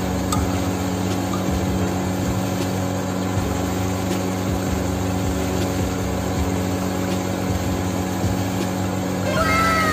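A steady low mechanical hum with an even pitch, from a machine or motor running. Near the end, a few whistle-like tones slide downward in pitch.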